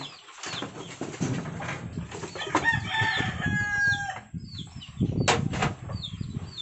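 A rooster crowing once, a held call starting about two and a half seconds in, amid a run of short, high, falling chirps from fowl. A loud, sudden burst of noise comes about five seconds in.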